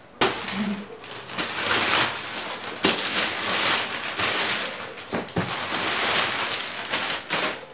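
Plastic mailer bag rustling and crinkling loudly as it is handled and opened and a cardboard box is pulled out of it, with a few sharp crackles.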